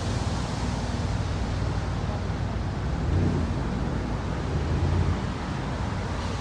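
Low, steady rumble of boat engines running, mixed with wind noise on the microphone.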